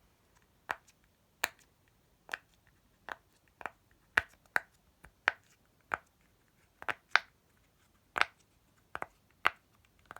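Silicone pop-it fidget toy bubbles being pressed through one after another, making sharp, separate pops at an uneven pace of one or two a second.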